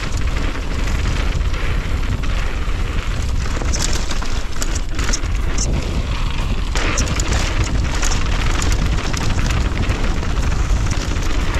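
Wind buffeting the helmet camera's microphone in a steady low rumble, over a mountain bike's knobby tyres rolling fast on a loose dirt and gravel trail. Scattered sharp clicks and rattles from stones and the bike run through it.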